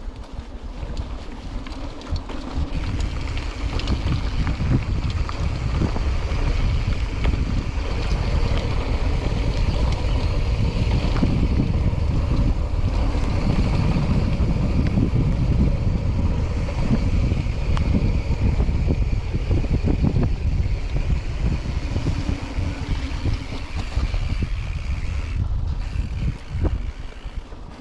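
Wind rushing over the microphone of a camera riding on a mountain bike moving fast along a trail, with faint knocks and rattles from the bike over rough ground. It builds over the first few seconds and eases near the end.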